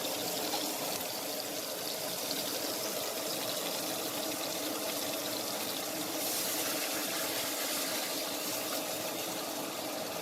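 Steady watery hiss from a pan of chicken, orzo and water heating on the stove, a little brighter from about six seconds in.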